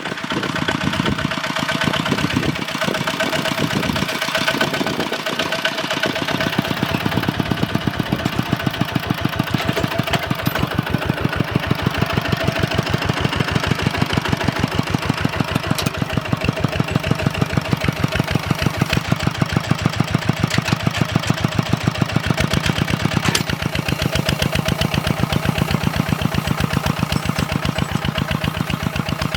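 Two-wheel walking tractor's single-cylinder diesel engine chugging steadily with an even, rapid beat while plowing; the beat becomes more pronounced about a quarter of the way in.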